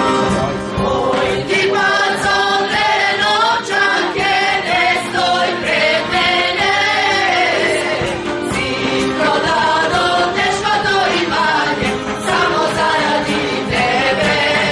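Mixed choir of women's and men's voices singing a traditional Macedonian folk song, with a steady held note beneath the moving melody.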